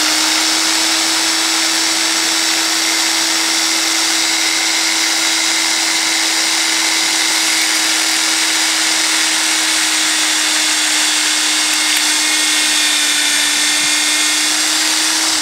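Electric drill running at full speed with a steady motor whine as its bit bores through a plastic cassette tape, putting up so little resistance that the pitch barely changes; right at the end the motor starts to wind down.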